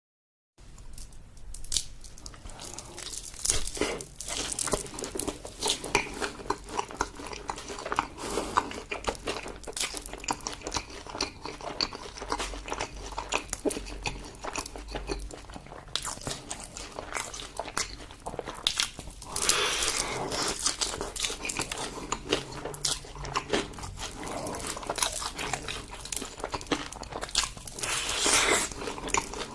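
A person eating close to the microphone: irregular biting and chewing, with rapid clicks and wet mouth sounds that start about half a second in and keep up without pause.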